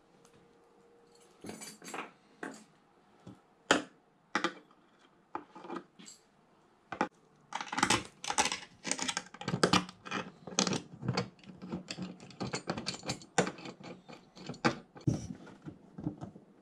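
Brass bathtub drain parts clinking and knocking as they are handled: the overflow elbow on its flexible corrugated tube is fitted against the tub wall. A few scattered clicks at first, then a quick run of clinks from about halfway through.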